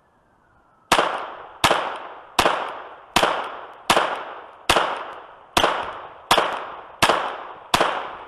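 Glock 44 .22 LR pistol firing CCI Blazer 38-grain lead round nose rounds: ten shots in a steady rapid string, about one every three-quarters of a second, each trailing off in a short echo. The tenth shot empties the magazine and the slide locks open.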